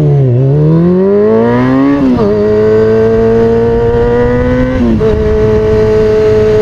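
2003 Kawasaki ZX-6R's inline-four engine through an aftermarket MotoGP-style exhaust, loud under way: the revs dip, then climb, fall off with an upshift about two seconds in, climb again, shift up once more about five seconds in, then hold steady.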